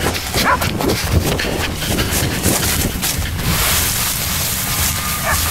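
Wind buffeting the microphone in a heavy low rumble, with a few brief high cries from the dogs fighting a boar, about half a second in and again near the end.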